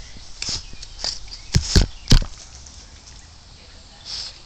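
A Boston terrier snuffling close up at a hollow plastic lattice ball, with short hissy sniffs. Three sharp knocks on the plastic come in quick succession near the middle.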